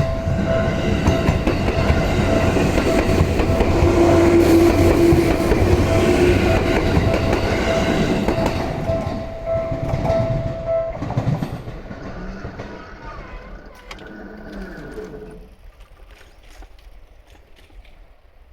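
Seibu New 101 series four-car electric train running over a level crossing, loudest a few seconds in and then fading away. The crossing's warning bell rings steadily and stops about eleven seconds in.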